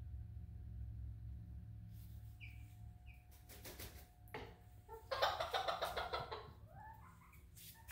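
Frizzle hen calling: two short high chirps a couple of seconds in, then about five seconds in a loud, rattling squawk lasting about a second that trails off into a falling note. A few brief rustles between the calls.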